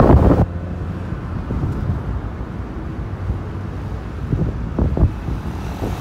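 Low, steady rumble of a passing or idling vehicle on a street. A louder, fuller noise in the first half second cuts off suddenly, and there are a few faint knocks near the end.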